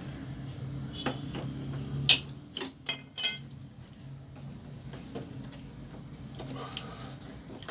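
Sharp metallic clicks and clinks from handling the metal parts and screws of a window air conditioner being taken apart for cleaning. There are several knocks between about one and three and a half seconds in, and the loudest one rings briefly. A steady low hum runs underneath.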